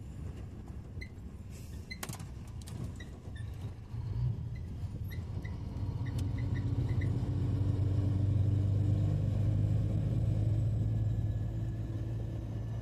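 Heavy truck's diesel engine running while driving, heard from inside the cab as a steady low drone that grows louder from about four seconds in, with small ticks and rattles in the cab early on.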